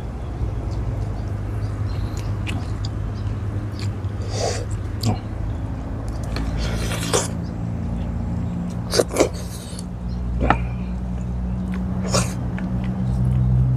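Close-up eating sounds of a man eating a boiled tuna head by hand: lips smacking, slurping and sucking meat and broth off the bones and his fingers. There is a longer slurp about seven seconds in and two quick smacks about two seconds later, over a low steady background rumble.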